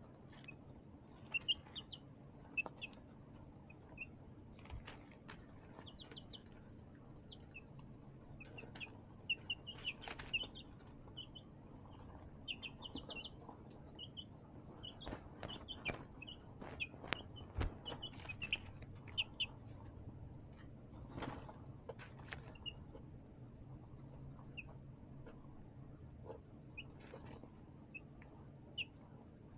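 Baby chicks peeping in short, high chirps, scattered and busiest in the middle stretch, with scattered light clicks and scuffs.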